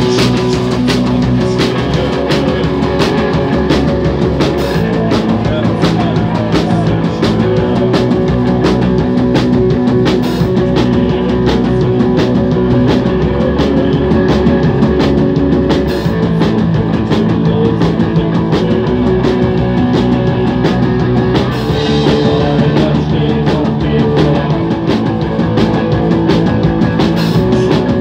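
Punk rock band playing live: electric guitar and bass chords over a steady drum-kit beat, loud and unbroken.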